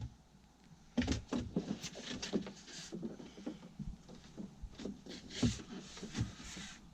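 Irregular light knocks, taps and rustles of handling materials, several a second, starting about a second in.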